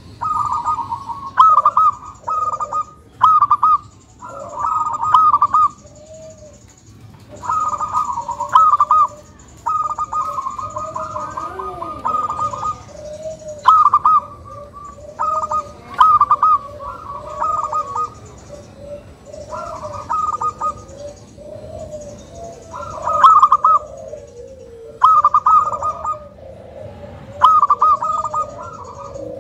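Local zebra dove (perkutut) singing: phrase after phrase of fast rattling coos, each lasting a second or two with short gaps between, over a lower wavering tone.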